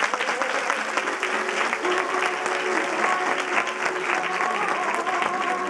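Audience applauding steadily, with music coming in quietly underneath about a second in.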